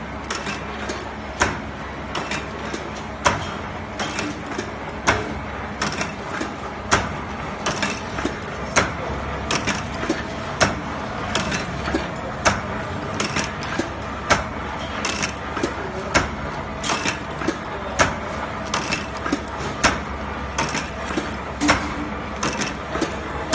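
CNC steel-strip bending machine running through its clamp-forming cycle: a steady motor hum with a sharp metallic knock about every two seconds as the forming tools strike and bend the strip around the pin, and lighter clicks in between.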